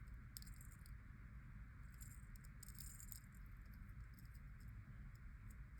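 Faint, scattered light clicks and ticks of jewelry pliers working a thin wire loop, most of them about two to three seconds in.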